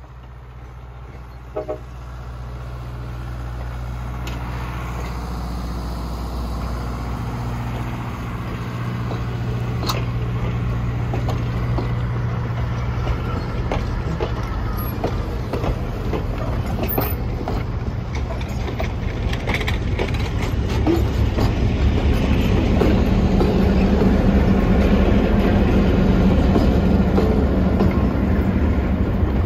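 Passenger train passing at close range: the cars' wheels clicking over rail joints, building steadily louder. A diesel locomotive's engine drone rises in the last several seconds as the locomotive at the end of the train comes by.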